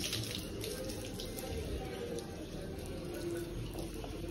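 Water jetting from a hand-held hose and splashing onto potted plants, their soil and leaves: a steady rush of spray.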